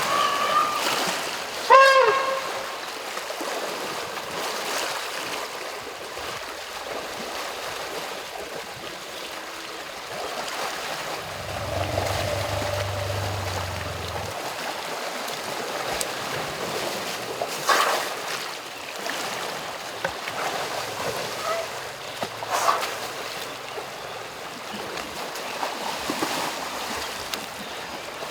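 Asian elephants splashing in a river, with water sounds throughout. A young elephant gives one short, high squeal about two seconds in. Fainter squeaks and splashes follow later.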